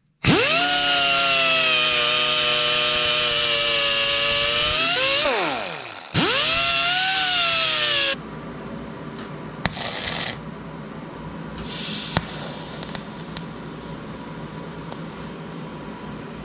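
Handheld power tool running at high speed: it spins up to a steady whine, winds down in pitch about five seconds in, then spins up again and stops abruptly about eight seconds in. After that there is a quieter steady hum with occasional light clicks.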